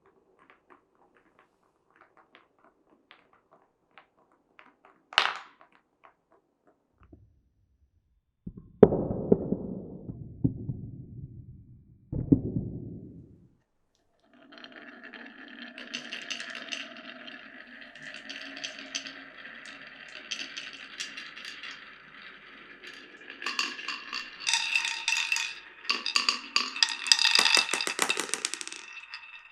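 Marbles running through a wooden and clear-plastic marble run. First there are light ticks and a sharp click, then two rumbling runs through wooden channels. From about halfway a long stretch of rolling and rattling follows, with a steady ringing tone in it, growing busiest near the end.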